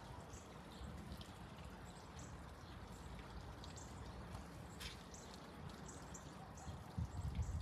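Quiet backyard ambience: a steady low rumble with faint, short high chirps repeating throughout, and a few dull thumps near the end.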